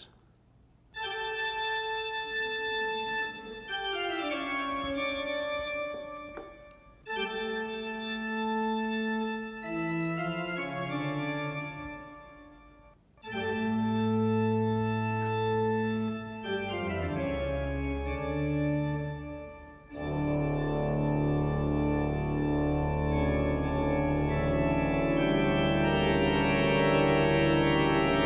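Organ music: held chords in several short phrases with brief breaks between them, swelling from about twenty seconds in to a full, dense chord with a pulsing bass. It is played as a complex sound to drive a simulation of the basilar membrane.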